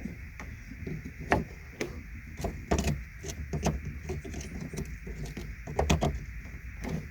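A replacement brake-light bulb socket being handled and fitted into a tail-lamp assembly by hand: an irregular run of small clicks, taps and knocks, the sharpest about a second and a half in, near three seconds and about six seconds in.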